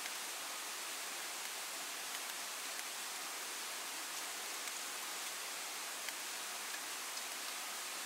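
Steady even hiss with a wood fire crackling faintly in a fire pit: small scattered pops and ticks.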